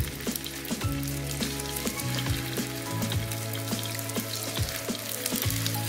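Chicken gola kebabs sizzling and crackling as they are laid into hot oil for shallow frying in a nonstick pan.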